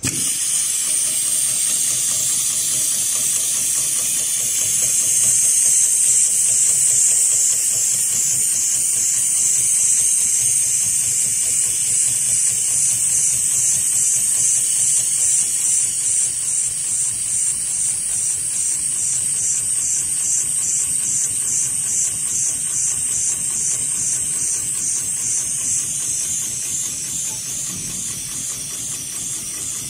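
HighTex 71008R automatic bar-tacking sewing machine running, stitching a bar tack into a climbing rope, under a loud steady hiss of air that starts abruptly. A fine, even pulsing runs through the hiss in the middle part.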